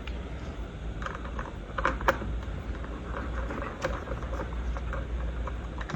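Light metallic clicks and scrapes of a hand screwdriver working the mounting screws of a wall light switch, a few sharper ticks among them, over a steady low hum.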